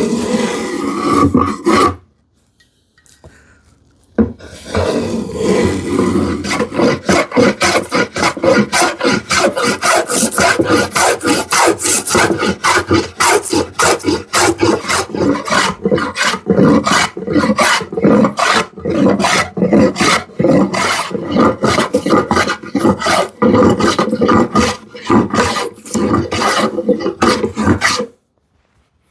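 Converted scrub plane (a vintage Stanley 78) traversing across the grain of a poplar board, each stroke a rasping cut, coming rapidly at about two to three strokes a second. One short burst at the start, then a pause of about two seconds, then steady planing that stops shortly before the end. This is rough dimensioning: taking the board quickly down to a gauge line.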